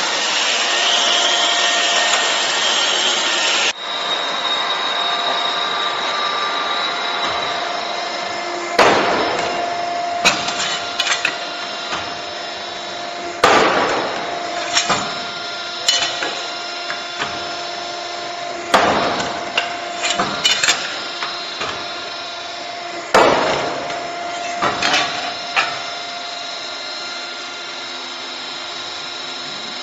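CNC busbar punching machine running with a steady hum while its punch strikes a copper busbar four times, sharp ringing bangs about every four to five seconds, each followed by a few lighter clicks. A louder hiss in the first few seconds stops abruptly about four seconds in.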